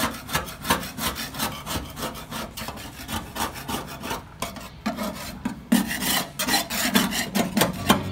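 Rusty corrugated steel floor of a Suzuki Multicab's cargo bed being scrubbed by hand, quick back-and-forth rasping strokes several times a second, stronger in the second half. The rust is being cleaned off before priming.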